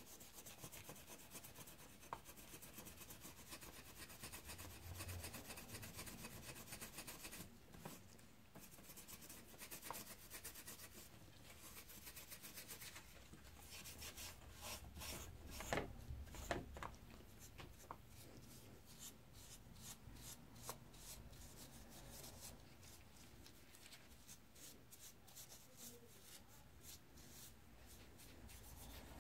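Faint scrubbing of steel wool over a wooden knife handle wet with paint stripper, quick strokes back and forth, with a couple of light knocks a little past halfway.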